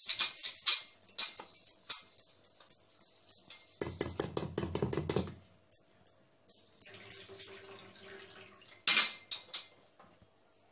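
A spoon clinking and scraping against a steel bowl, stirring a dry flour mix, in quick repeated ticks. A low rumble lasts just over a second about four seconds in, and a single loud knock comes near the end.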